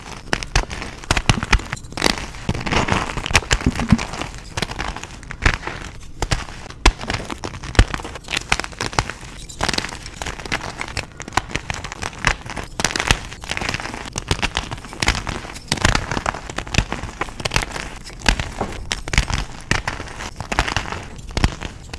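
Reformed gym chalk crushing and crumbling, a dense, unbroken run of crisp crackles and snaps.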